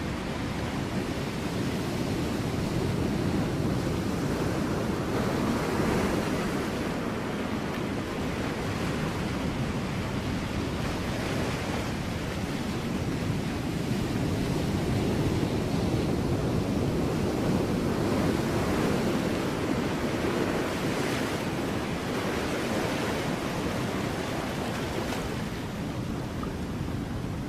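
Ocean waves breaking on rocks, a continuous wash of surf that swells and eases every few seconds.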